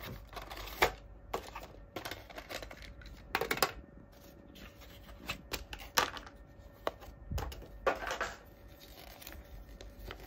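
Paper and plastic packaging crinkling and rustling in the hands as it is opened and handled, with scattered sharp clicks and taps.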